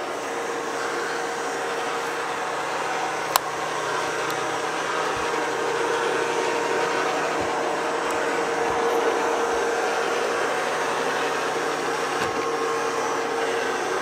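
Taurus Striker Mini robot vacuum running on carpet: a steady whir from its suction fan and brushes with a steady whine over it. A single sharp click sounds about three seconds in.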